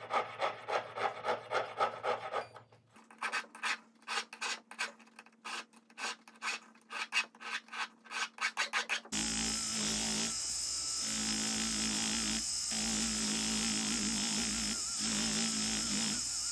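Quick back-and-forth hand strokes of a jeweler's saw and file on soldered gold rings, cleaning up excess solder along the seams. From about nine seconds in, this gives way to a steady, louder motor-driven tool with a constant hum.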